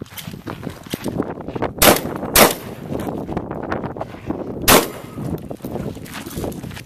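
Three shotgun shots, the first two about half a second apart and the third a little over two seconds later, with footsteps crunching on gravel between them.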